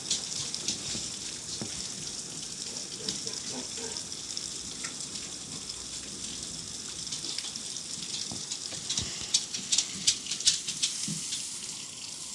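Heavy rain falling as a steady hiss, with a run of sharp drops tapping on a nearby surface about three-quarters of the way through.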